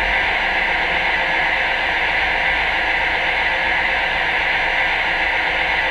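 Steady hum and hiss from a Lionel 57' smoking mechanical reefer car standing on the track with its smoke unit and built-in sound running, unchanged throughout.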